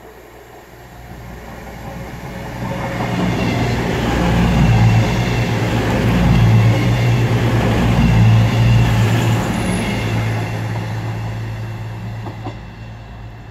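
CrossCountry Voyager diesel multiple unit passing through the station without stopping: steady low engine drone and wheel-on-rail noise that build over a few seconds, stay loud through the middle, then fade as the train goes away.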